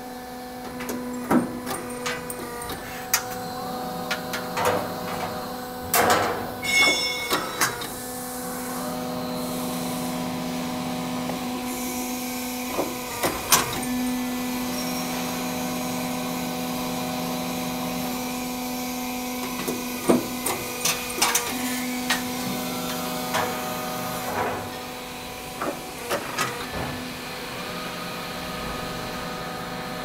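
Garage door guide rail roll forming machine running with a steady hum, its pitch holding level. Sharp metallic knocks come at irregular moments every few seconds as the hydraulic online punching station works on the steel rail.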